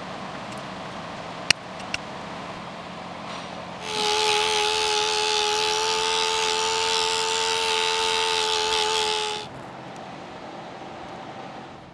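A sharp click, then a handheld power tool running at steady speed for about five seconds, a constant whine with a hiss over it, that stops abruptly.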